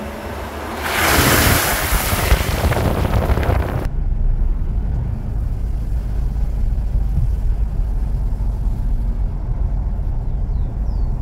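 Car driving along a wet dirt track, a loud rush of water splashing from the tyres for about three seconds. Then, about four seconds in, it changes abruptly to a steady low rumble of wind buffeting the microphone as the car drives on.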